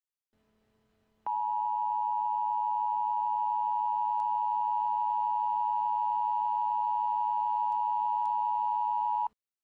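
Emergency Alert System attention tone: a single steady, high electronic beep that starts abruptly about a second in, holds for about eight seconds, and cuts off suddenly near the end. It is the signal that an emergency warning broadcast, here a flash flood warning, is about to follow.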